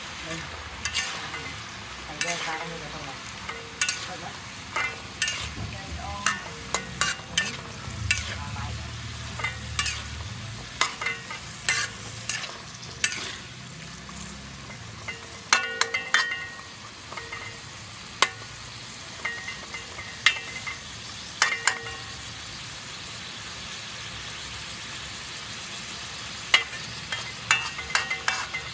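Metal spatula scraping and clanking against a wok in irregular strokes over a steady sizzle of stir-frying. The strokes come in clusters, with a calmer stretch of sizzle alone before a last flurry near the end.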